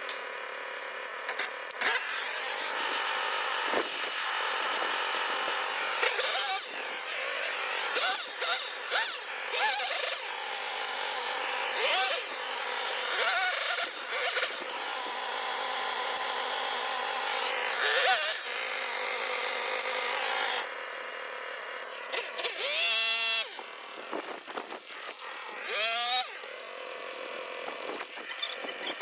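Chainsaw engine running and revving up again and again in short bursts, as when cutting branches on a tree being taken down.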